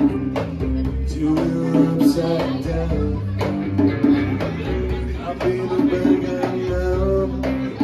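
Live music from a duo: electric guitar playing sustained notes and a hand drum beating along.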